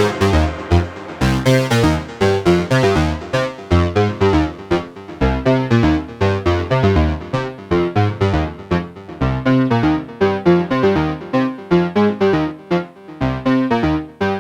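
IK Multimedia Uno Synth Pro X analog synthesizer playing a fast run of short, evenly paced notes over a lower bass part.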